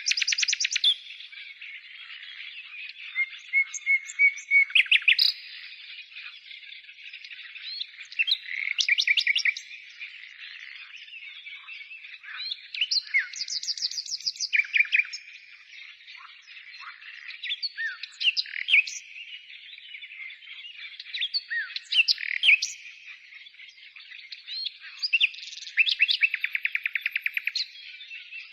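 Nightingales singing: loud phrases of fast repeated notes and trills every few seconds, with a long rapid trill near the end, over a continuous background of more birdsong.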